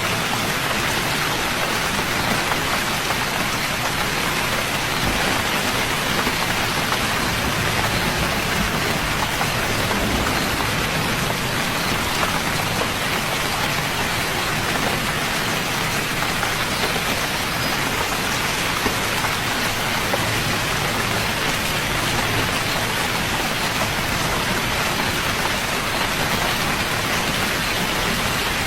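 Steady rain falling, an even dense patter of drops on a surface.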